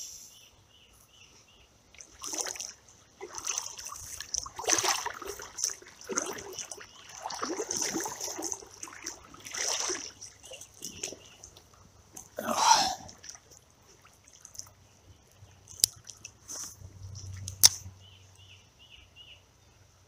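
Water splashing and sloshing at the creek surface in irregular bursts through the first two-thirds. After that it is quieter, with a couple of sharp clicks.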